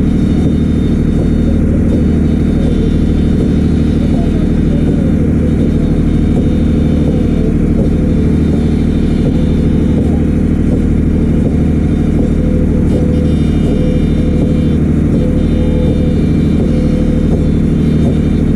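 Motorboat engine running steadily at speed, with water rushing and spraying off the hull.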